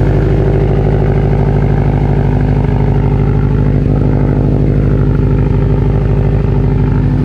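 Subaru WRX STI's turbocharged 2.5-litre flat-four idling steadily at a constant pitch, cold and just started, through a new non-resonated Grimmspeed exhaust with catless up-pipe and catted downpipe on the factory unequal-length manifold.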